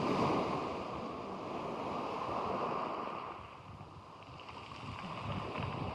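Sea waves washing onto the beach, surging loudest at the start and easing to a lull about four seconds in before building again, with wind on the microphone.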